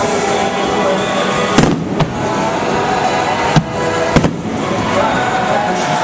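Fireworks going off in sharp bangs, about four within a few seconds, over music playing throughout.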